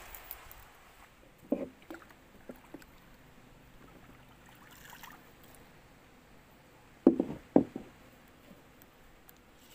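A few short hollow knocks on a small boat, the loudest two about half a second apart near the end, as a wooden paddle is handled against the hull.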